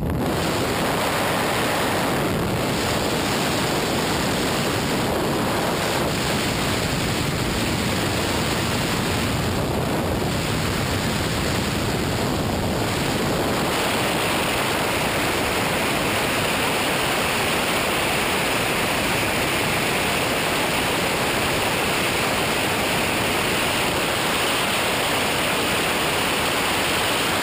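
Loud, steady rush of slipstream wind blasting the microphone at the open door of a jump plane in flight. About halfway through, the hiss turns brighter and sharper.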